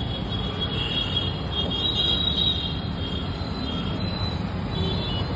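Steady low rumble of street traffic, with faint high-pitched tones coming and going.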